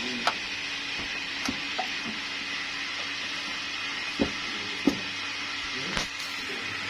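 About half a dozen short metallic clinks and knocks of hand tools working on the AC compressor's mounting bolts, over a steady background hiss.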